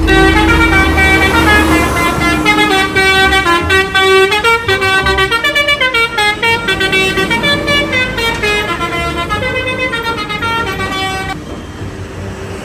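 Bus "telolet" horn, a set of multi-trumpet musical air horns, playing a melody of many short stepping notes. It stops about a second before the end, leaving steady vehicle noise.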